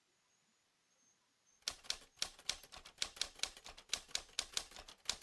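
Typewriter keys clacking quickly and irregularly, about seven strikes a second, as a sound effect. The clacking starts about one and a half seconds in.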